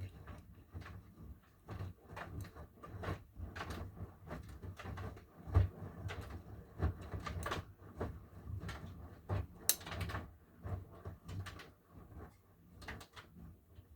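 Miele washing machine running a load: irregular knocks and clunks over a low hum, one heavier thump about five seconds in.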